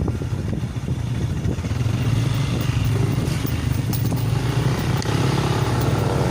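Motorcycle engine running steadily while being ridden, getting a little louder about two seconds in.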